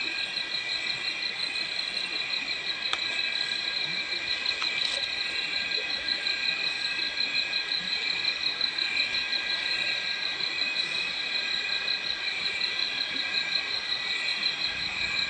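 Night chorus of crickets and other insects: several steady high trills at different pitches overlapping, the highest pulsing rapidly, unbroken throughout.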